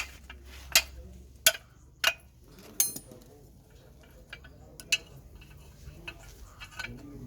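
Sharp metal knocks and clinks while the steering knuckle and wheel bearing are held and worked on, about four strong strikes in the first three seconds, one of them ringing briefly, then fainter taps and a last knock about five seconds in.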